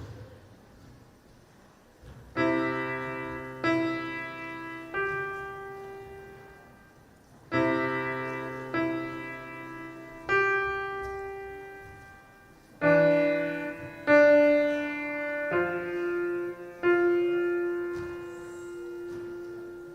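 Piano played slowly: after about two seconds of quiet, chords are struck one at a time, a second or so apart, each left to ring and fade, in short phrases of two or three chords.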